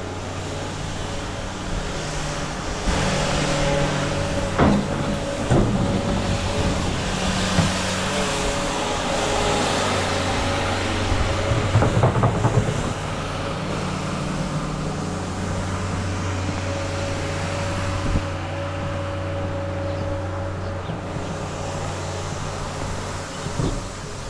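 Engine of a heavy snow-removal vehicle running steadily, with a few sharp knocks about five seconds in and a cluster of clanks around the middle.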